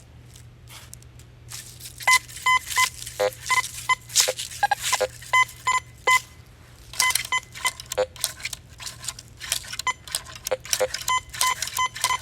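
Teknetics Patriot metal detector, on its slow speed setting, giving short repeated beeps as the coil sweeps back and forth over a deep buried silver quarter. Most beeps are a high tone, with a few lower ones mixed in, and short crackles sound between them. The beeps start about two seconds in.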